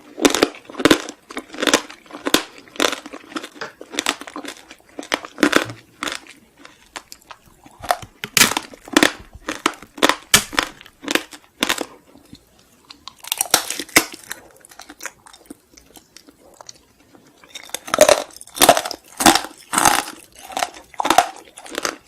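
Crunchy chewing close to the microphone: a person eating a crisp snack, with steady crunches about two a second, stopping briefly a few times between mouthfuls.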